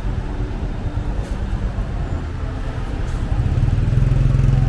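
City street traffic: a steady low engine rumble. About three and a half seconds in, a vehicle's engine hum grows louder as it comes close.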